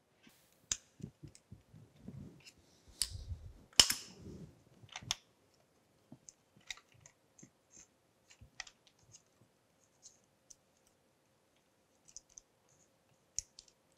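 Small metallic clicks and scrapes as the nut of an old toggle switch is loosened and the switch is worked out of a brass switch plate. A cluster of handling noise comes between about two and five seconds in, with the sharpest click near four seconds, then scattered light clicks.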